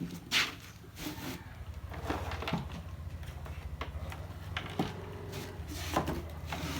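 Scattered knocks and clicks, as of things being handled, over a steady low hum.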